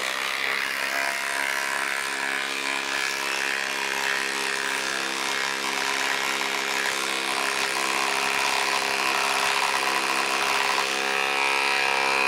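DeWalt 12-volt Xtreme impact driver hammering continuously as it drives a 4-inch lag screw into the end grain of a log. The rapid impacts hold a steady tone and grow a little louder near the end.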